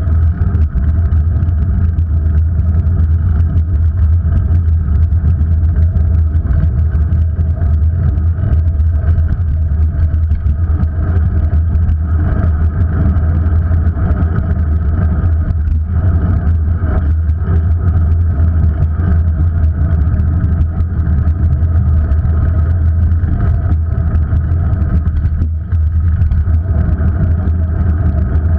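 Steady, loud low rumble of road and wind noise picked up by an action camera mounted on a vehicle moving along a city street, with a faint steady hum over it.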